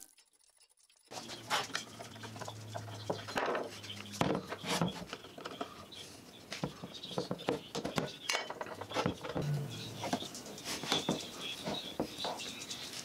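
A screwdriver working on the metal gear head of a corded angle grinder: irregular small metal clicks, taps and scrapes as the grinder is turned and handled on a workbench. The sounds begin about a second in, after near silence.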